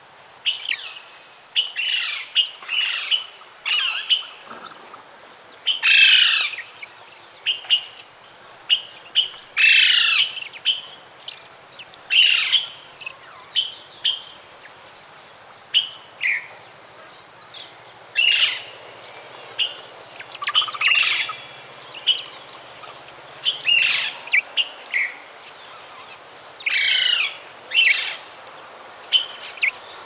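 Saffron toucanet calling: loud, rapid chirping phrases every two to four seconds, with short high single notes between them.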